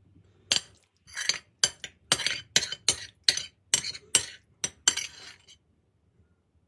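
Metal spoon scraping and clinking against a ceramic plate in about a dozen quick strokes as leftover cream sauce is gathered up. It stops about a second before the end.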